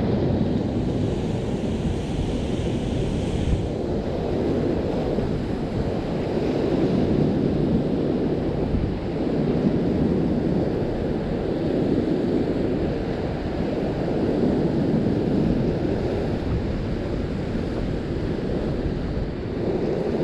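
Rough surf washing against a rock shelf, with wind buffeting the microphone: a steady low rush that swells and eases every few seconds.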